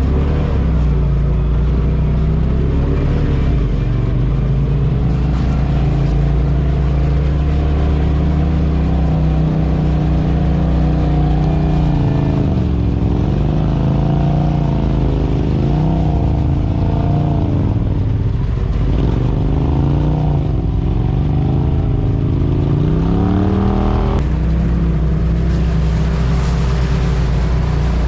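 Polaris RZR side-by-side engine running under way. Its pitch holds fairly steady at first, then swings up and down repeatedly as the throttle is worked, and settles again near the end.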